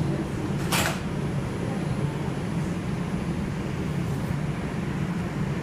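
Steady low hum and rumble of an R142 subway car, with a brief hiss about a second in.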